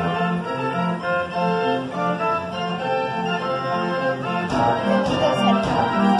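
Band organ playing a tune: pipes carry the melody over a regular bass. Drum and cymbal strokes join about four and a half seconds in.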